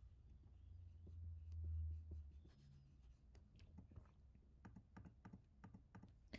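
Near silence with a faint low hum. From about three seconds in comes a run of soft clicks and light scratches, several a second, from working the computer input while brushing on a layer mask.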